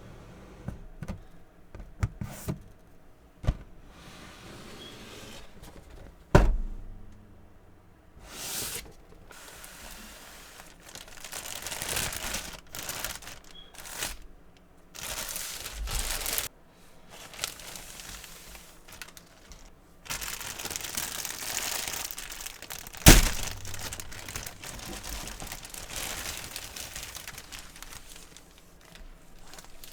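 Funko Pop boxes being handled and opened: cardboard and plastic crinkling and tearing, with several sharp knocks, two of them much louder than the rest.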